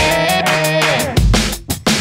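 Background music with a heavy beat, bass and sustained notes. It drops out briefly near the end.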